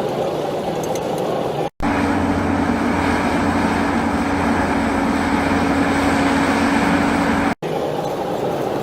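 Steady vehicle engine rumble, as from a cartoon truck sound effect. It breaks off abruptly into silence twice, about two seconds in and near the end, and between the breaks runs as a steadier hum with a held tone.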